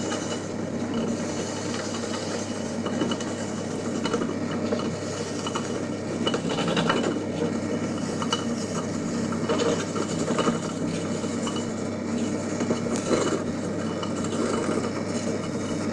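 Electric grinder fitted with a coconut scraper running steadily, its motor humming under an irregular scratchy rasp as coconut flesh is scraped against the spinning cutter.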